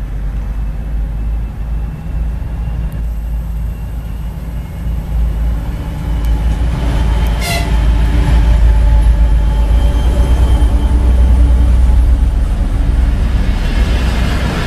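Twin-section Soviet-built diesel locomotive's engines running under power, a low drone that grows louder as it approaches and passes close by, then passenger coaches rolling past.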